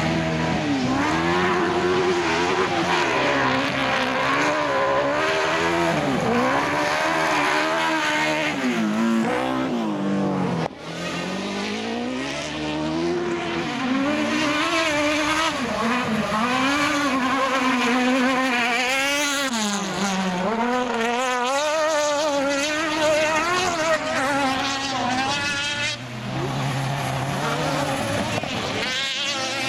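Engines of single-seat autocross buggies racing on a dirt track, loud throughout, the engine note rising and falling over and over as they accelerate and back off.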